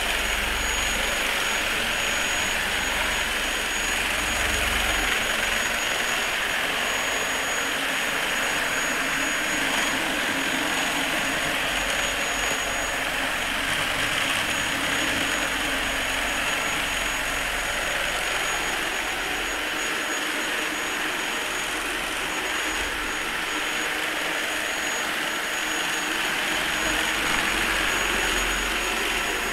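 Vorwerk Kobold VK7 cordless vacuum cleaner running steadily: a constant rush of air with a thin high whine from the motor.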